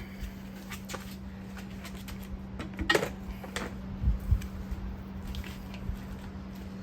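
Rubber sleeve being worked by hand onto a reel mower's rear roller: scattered clicks and rubbing, a sharp knock about three seconds in and two low thumps just after, over a steady low hum.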